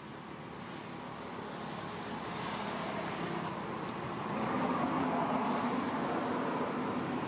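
A motor vehicle's engine running steadily and growing gradually louder, as if approaching.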